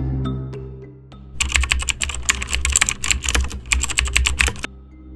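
Rapid clatter of typing keys for about three seconds, beginning about a second and a half in and stopping abruptly: a typing sound effect. Soft mallet music fades out just before it.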